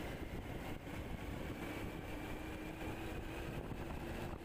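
Steady engine hum and road noise heard from a moving motorcycle, with wind on the microphone and a faint whine that rises slightly in pitch partway through.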